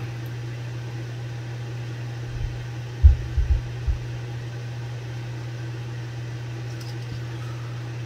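Steady low hum, with a few dull low thumps about three to four seconds in.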